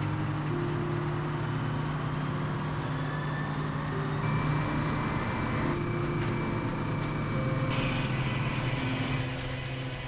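Circular sawmill running: a steady machinery hum with the big head-saw blade spinning and a high thin whine. A louder hiss sets in about three-quarters of the way through as the blade cuts through a log.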